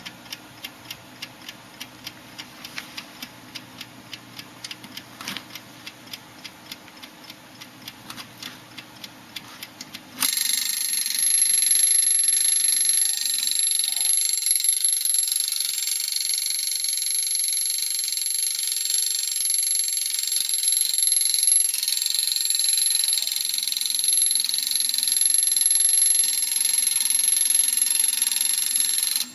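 Antique mechanical alarm clock ticking steadily at a few ticks a second, then its alarm going off about ten seconds in: a loud continuous metallic ringing that holds steady for nearly twenty seconds and stops abruptly.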